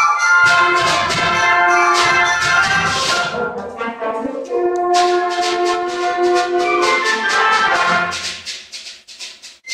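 High school concert band playing: sustained brass and woodwind chords over regular percussion strokes. The full band dies away about eight seconds in.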